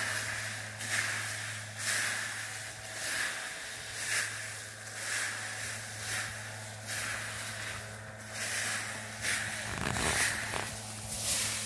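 Plastic rake scraping through dry fallen leaves and soil, about one stroke a second, raking up coffee that fell to the ground under the bushes. A steady low hum runs underneath.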